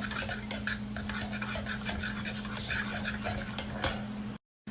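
A utensil stirring and scraping around a small pot, with a steady run of light clinks against the metal, as petroleum jelly and Vicks are stirred into hot olive oil to melt. A steady low hum lies underneath, and the sound cuts off abruptly near the end.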